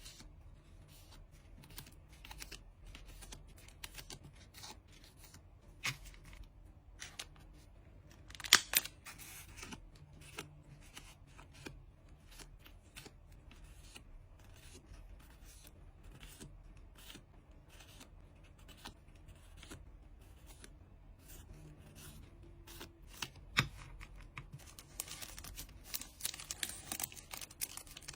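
Close-up handling of trading cards and packing materials: scattered small clicks and rustles of plastic sleeves and paper, a sharper crackle about a third of the way in, and denser crinkling and tearing near the end.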